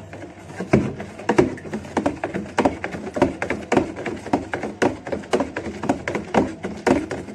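A hand stirring grain in a bucket of coriander-infused water, a string of irregular quick wet strokes and clicks, several a second.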